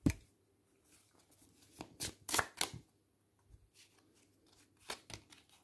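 Tarot cards being handled: a string of short, crisp card snaps and slaps, irregularly spaced, with a cluster about two seconds in and another pair near the end.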